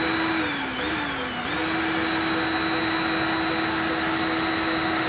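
Power drill spinning a metal stirring rod in a can of Plasti Dip, giving a steady motor whine. Its pitch sags briefly about a second in, then holds steady.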